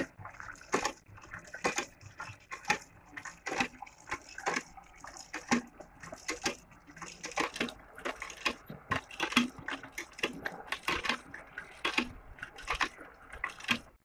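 A bull drinking from a metal tub, with repeated slurps and splashes about one or two a second, over water pouring steadily from a pipe into the tub.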